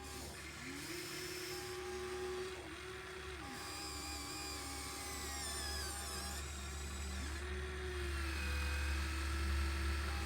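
Small electric motors of a radio-controlled model excavator whining, their pitch sweeping up and down several times as the controls are worked, over a steady low hum.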